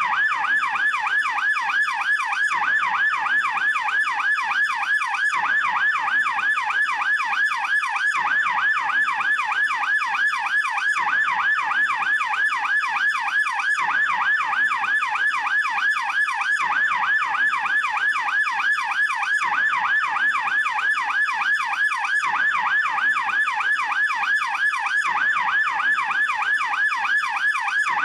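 German police yelp siren sounding continuously: a fast, evenly repeating rise-and-fall wail.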